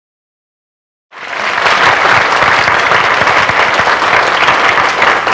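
Silence for about the first second, then an audience applauding steadily.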